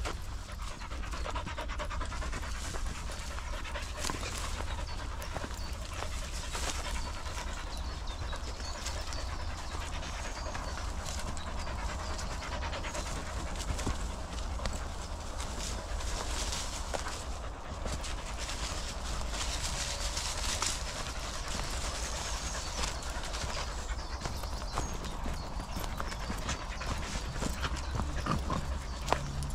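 Dog panting steadily, with the walker's footsteps on a dirt path.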